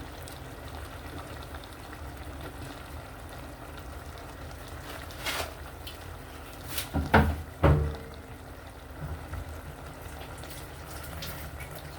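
Pot of okra soup with chicken stock simmering and bubbling steadily, with freshly chopped okra just added. A few sharp knocks break in, the loudest about seven seconds in.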